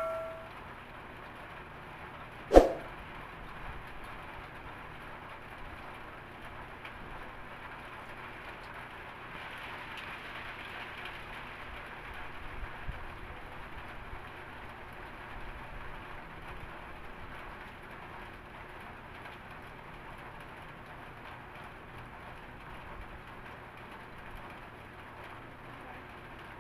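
Steady hiss of background room noise, with one sharp knock and a brief ring about two and a half seconds in.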